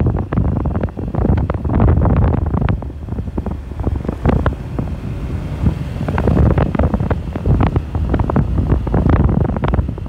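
Wind buffeting the microphone on a moving motorcycle, with many sharp knocks and rattles from riding over a rough, bumpy dirt road.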